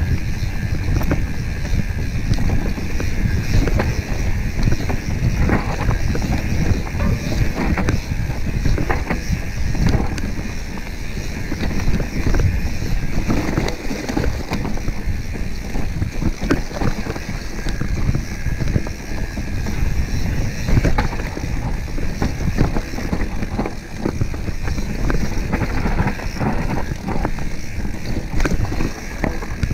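Mountain bike descending a dirt singletrack covered in dry leaves: wind buffeting the microphone, tyres running over dirt and leaves, and the bike rattling and knocking over bumps.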